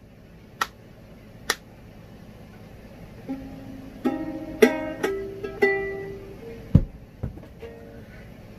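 Two sharp clicks in the first two seconds, then a ukulele sounding a handful of separate plucked notes, with a low thump about seven seconds in.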